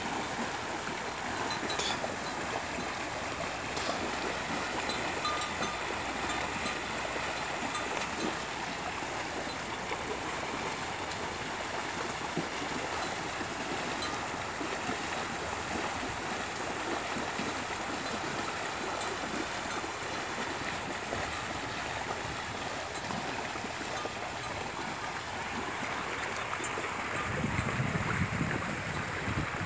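Water sloshing and splashing as a herd of water buffalo wades through shallow floodwater, a steady busy wash of sound. Near the end a low rumble of wind on the microphone comes in.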